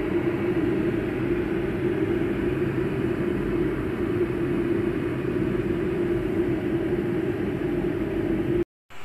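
Cornell 1.8 L cool-touch stainless steel electric kettle heating water: a steady rushing rumble with a low hum. It cuts off suddenly near the end.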